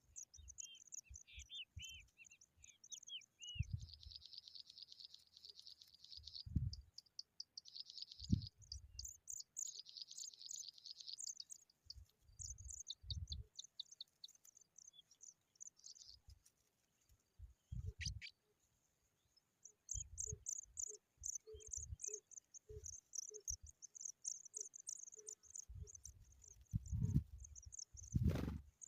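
Insects chirping in a high, steady pulse, with short bird chirps in the first few seconds and buzzy trills a few seconds in and again around ten seconds. Scattered low thumps run through it.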